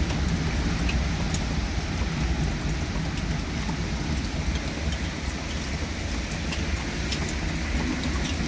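Low, steady rumble of distant rolling thunder, slowly easing off, with sparse raindrops ticking.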